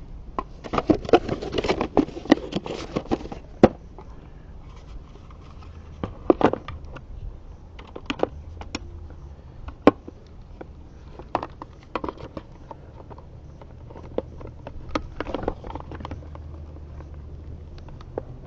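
Handling and unpacking of small equipment and its packaging: a burst of crinkling and clicking in the first few seconds, then sharp clicks every second or two, over a steady low hum.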